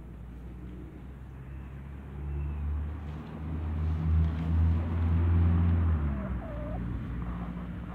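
An engine running close by, a low steady hum that swells and then drops in pitch and fades about six seconds in. A chicken gives a brief soft call just after.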